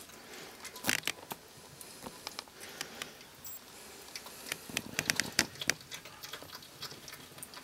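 North American porcupine chewing corn kernels: irregular crunchy clicks, coming in quick clusters about a second in and again around five seconds in.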